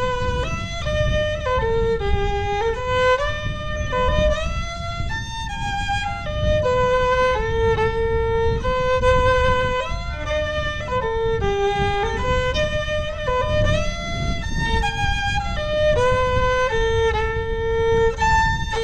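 Solo fiddle playing a slow Scottish air as a single melody line of held notes, bowed to imitate the sound of the bagpipes.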